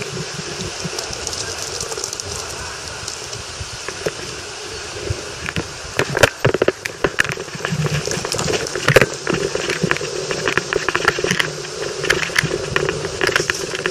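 Outdoor street noise: a steady rush with many irregular clattering knocks, busier from about six seconds in.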